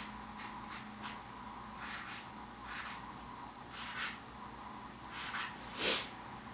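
Drawing on paper with a pen: a series of short, irregular strokes, about one or two a second, with a louder one near the end.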